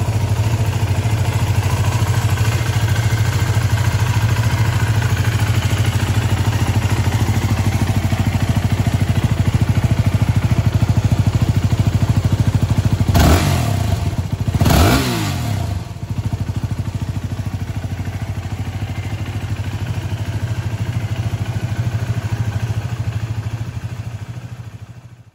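Yamaha WR250R's 250 cc single-cylinder four-stroke engine idling steadily, with two quick throttle blips about halfway through, each rising and falling in pitch. The idle fades out at the end.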